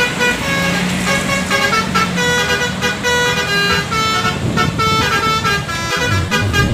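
Indonesian 'telolet' multi-tone bus horn of the Basuri type playing a quick melody of short, bright honking notes one after another. A low steady hum sits under the first two seconds.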